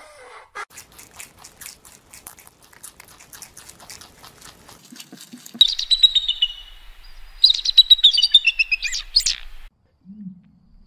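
Hawk screaming, a ferruginous hawk by its look: two bouts of loud, high, harsh calls with falling notes, starting about halfway through. Before them there is only faint rapid clicking.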